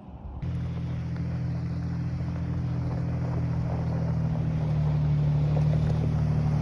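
A vehicle engine running steadily, getting gradually louder, as if drawing closer; it starts abruptly about half a second in.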